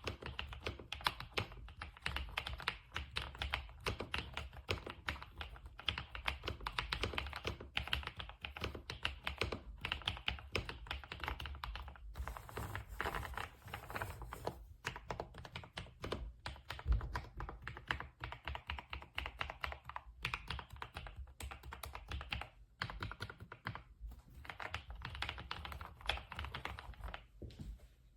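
Fast, continuous typing on a Kisnt gasket-mounted mechanical keyboard with linear switches: a dense run of key clicks, broken by a few brief pauses.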